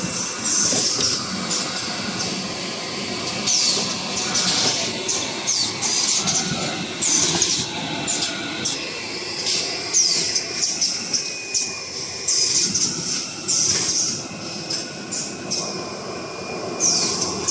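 Automatic band-saw toilet paper log cutting line running, a steady mechanical clatter broken by short, sharp hissing bursts every second or two, some falling in pitch.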